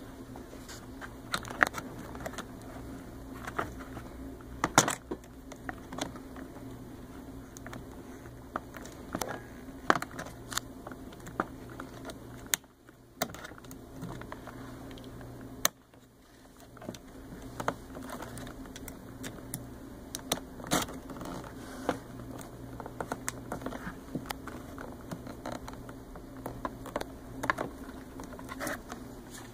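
Irregular small clicks and scrapes of a screwdriver working at plastic wire connectors and wiring, over a steady low hum.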